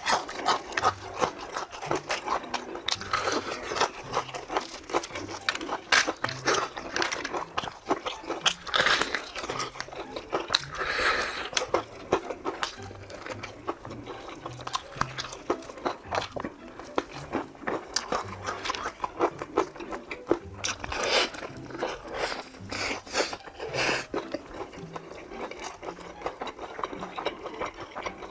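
Close-miked crunching and chewing of crispy fried chicken, with irregular bites and crackles of the fried coating throughout. Faint background music with a repeating bass line underneath.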